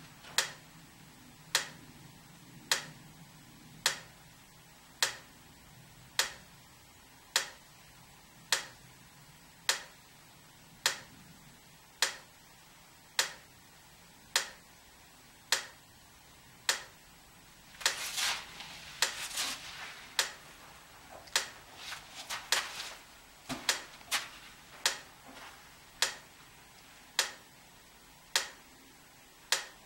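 A sharp tick repeating steadily, a little slower than once a second, like a clock or an electric fence charger. Between about 18 and 23 seconds in, a short stretch of rustling and scuffing runs between the ticks.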